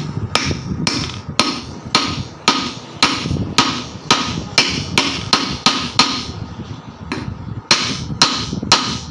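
Hammer tapping a new ball bearing into a ceiling fan's housing, going slowly, with sharp metallic strikes about two a second. The strikes pause briefly about six seconds in, then carry on until the bearing seats.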